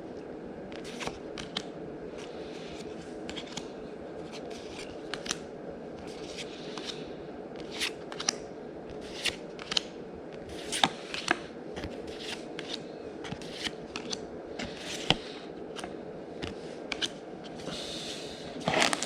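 Trading cards being handled and laid down one at a time: irregular light clicks and snaps of card stock, over a steady low hum.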